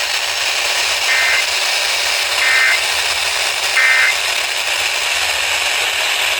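Three short bursts of Emergency Alert System digital data tones over FM radio, about a second apart. Their short length and threefold repeat between two alerts fit the end-of-message bursts that close an EAS alert. A steady radio hiss runs underneath.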